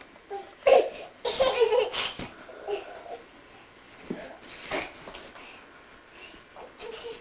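Young children laughing and giggling in short, scattered bursts.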